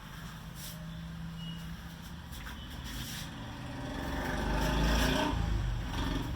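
A motor vehicle passing by: its engine noise swells to a peak about five seconds in, then fades.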